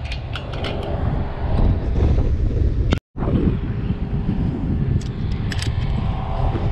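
Wind buffeting the microphone in a heavy, steady low rumble, with a scatter of sharp clicks near the start and again about five seconds in. The sound drops out for a split second about three seconds in.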